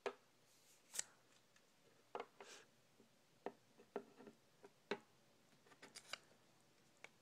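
Faint, scattered short clicks and brief rustles of small paper sheets and plastic toy pony figurines being handled and moved on a tabletop.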